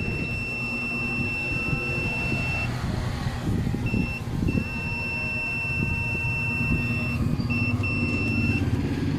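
Digital multimeter's continuity buzzer sounding a steady high beep for about two and a half seconds, then several shorter beeps of uneven length as the probes make and break contact, the meter's sign of a short or low-resistance path. A low rumble runs underneath.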